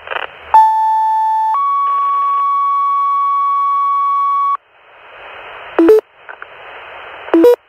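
Fire dispatch tone-out heard through a radio scanner: a one-second tone, then a higher tone held about three seconds, the two-tone sequential page that alerts the companies. Radio hiss follows, broken twice by a short, loud two-note beep.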